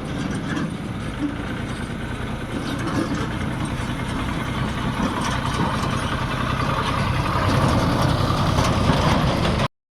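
Heavy diesel machinery engine running steadily, growing somewhat louder over the second half, then cutting off abruptly near the end.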